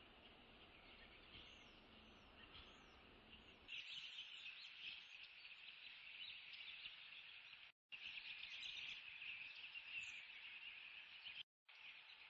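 Faint outdoor ambience of small birds chirping in a steady high chorus, a little louder from about four seconds in. The sound cuts out briefly twice.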